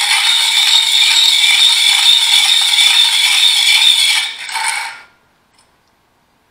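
Hand-cranked piston ring gap filer, its abrasive wheel grinding the end of a top compression ring steadily to widen the ring gap. The grinding stops about four seconds in, comes back for one brief turn, and cuts off about five seconds in.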